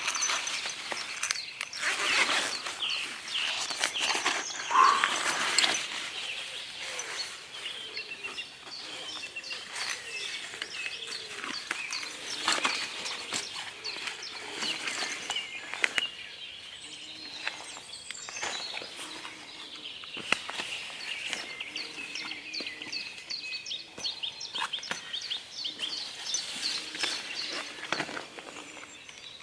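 Dawn chorus: many songbirds singing over one another, their songs echoing off the lake.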